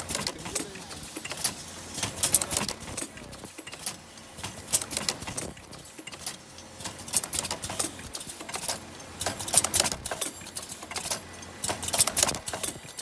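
Face-mask ear-loop welding machine running, its mechanism clicking and clattering in quick clusters of sharp clicks over a steady mechanical background.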